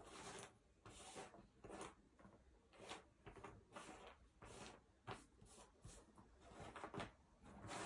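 Faint handling of cardboard jigsaw puzzle pieces: short, irregular scrapes and clicks, a couple a second, as pieces are picked up, sorted and slid over the table.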